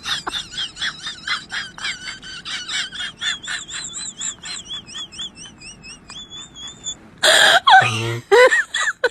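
Very high-pitched, rapid squeaky laughter, about four wavering pulses a second, ending in a held squeal. About seven seconds in, a loud burst breaks in and lower voices follow.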